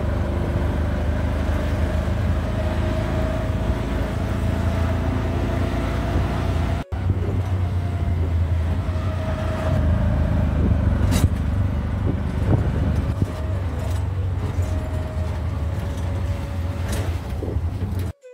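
Auto-rickshaw's small engine running steadily as it drives along the road, heard from inside the open passenger cabin, with a couple of brief knocks from the ride.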